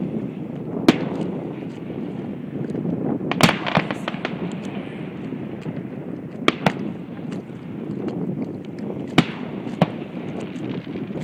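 Aerial fireworks going off: about seven sharp bangs at irregular intervals, some in quick pairs, over steady background noise.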